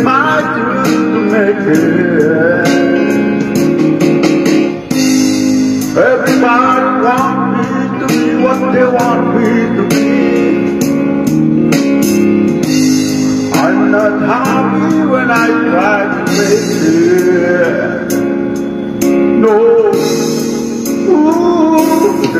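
A man singing into a handheld microphone over a karaoke backing track led by guitar, in phrases with short breaks between them.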